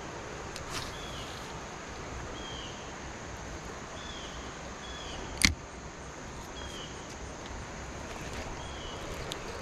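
Steady rush of a flowing river, with a short falling chirp repeated every second or two and one sharp click about halfway through.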